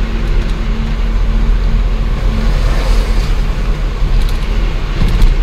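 Cab noise of an Ashok Leyland 1214 truck on the move: a steady diesel engine drone and road rumble, heard from inside the cab.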